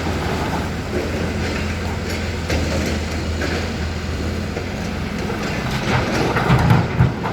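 Hyundai HX220L crawler excavator's diesel engine running steadily under a clattering, rattling metal noise, with a few heavier thumps near the end.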